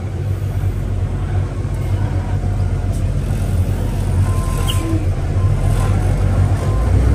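Engine of a self-propelled crop sprayer running steadily under load as it drives across a hillside, a low, even hum heard from inside the cab.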